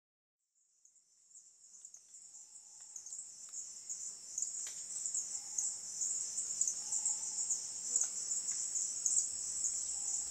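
Underwater reef ambience picked up by a video camera in its housing: a steady high crackling hiss that fades in over the first few seconds after a brief silence.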